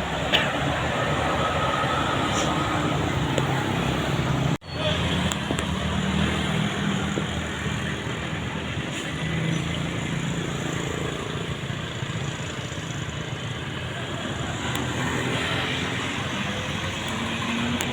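Roadside traffic: steady engine and tyre noise from passing buses and other vehicles, with a low engine rumble. The sound cuts out for an instant about four and a half seconds in.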